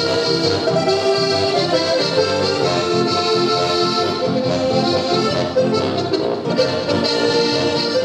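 Instrumental music in a traditional folk style, playing continuously with sustained chords.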